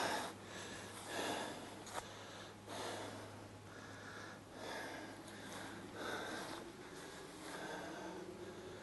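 Close breathing of the person holding the camcorder, a soft in-and-out about once a second, with one sharp click about two seconds in, over a steady low hum.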